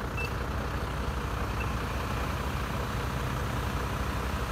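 Heavy truck engine of a fire brigade aerial ladder truck idling steadily, a low even drone.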